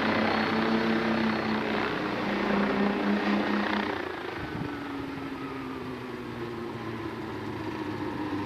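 Experimental homebuilt helicopter's engine and rotor running with a steady pitched drone. The drone eases off and drops in level about four seconds in.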